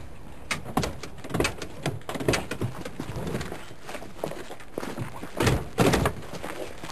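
Station wagon's doors being opened and shut: a string of clicks and knocks, with the two loudest door thunks about five and a half and six seconds in.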